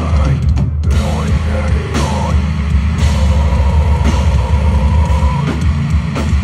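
Loud live rock band playing with drums, guitar and a female lead vocal, the band coming back in hard right at the start after a brief stop, the singer holding a long note in the middle.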